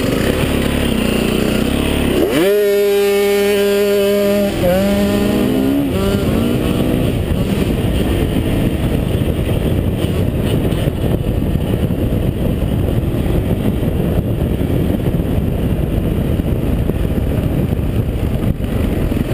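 Yamaha dirt bike engines being ridden hard on a trail: about two seconds in one engine climbs to a high, steady pitch, holds for about two seconds, then drops off with changing revs. After that, dense wind and riding noise on the helmet-mounted camera covers the engine.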